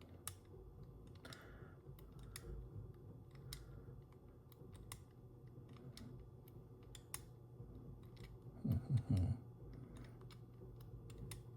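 Faint, irregular clicking of the number wheels of a Master Lock ProSeries 1177D combination padlock being turned by hand while the combination is re-dialed.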